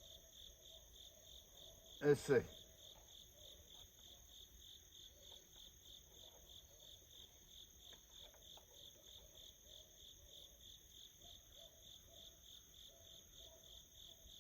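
Crickets chirping faintly, a steady and evenly repeating high chirp.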